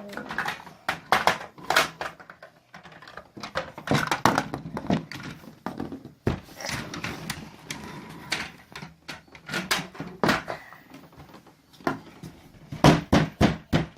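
Small plastic Kinder Surprise capsules and toys clicking and knocking together as they are handled and pried open, with a run of louder sharp knocks near the end.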